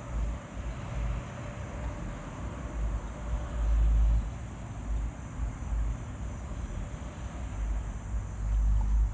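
Gusts of wind buffeting the microphone in uneven low rumbles, strongest about halfway through and near the end, over a steady high insect drone.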